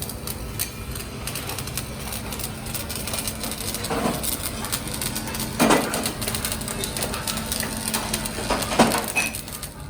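A steady hum under frequent small clicks and knocks, with three louder knocks about four, six and nine seconds in.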